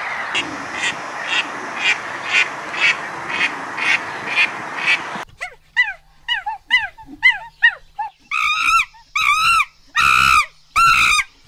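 Mallard duck quacking about twice a second over a steady rushing noise, cut off about five seconds in. Then a monkey gives a quick series of short, arching calls, which grow louder and higher near the end.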